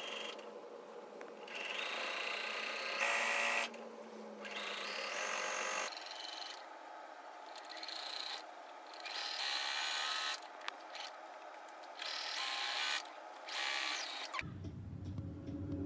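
Domestic electric sewing machine stitching puffer fabric to quilt batting. It runs in short bursts of one to two seconds, stopping and starting several times.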